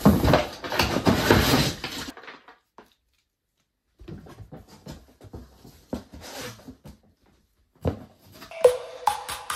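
Rustling and scraping of a cardboard speaker box and its packaging being handled, then a stretch of dead silence and quieter rustling. Electronic music with a steady beat starts near the end.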